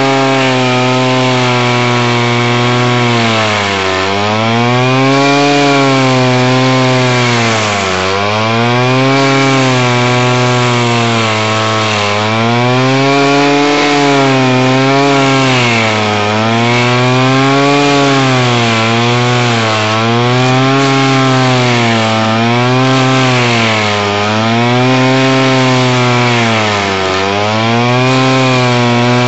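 Alpine Magnum stump grinder running under load, its cutter wheel grinding into a stump. The engine note dips and recovers again and again, about every two to four seconds, as the engine bogs slightly each time the cutting head is pulled into the wood.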